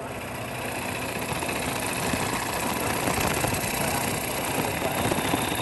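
Bowl gouge cutting a spinning moist birch bowl blank on a wood lathe: a steady rough cutting noise over the lathe's running, as long ribbons of shavings peel off. It grows a little louder over the first couple of seconds, then holds steady.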